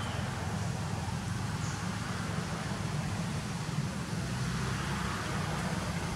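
Steady low outdoor background rumble with a faint hiss, no distinct events.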